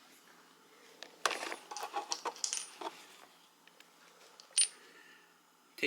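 Small metal assembly parts clinking and clattering as they are handled: a run of light knocks and clicks, then a single sharp metallic clink about four and a half seconds in.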